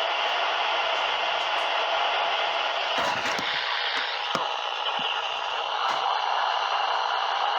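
Radio static: a steady hiss where the received alert broadcast has faded out, with a few crackles about three and four seconds in.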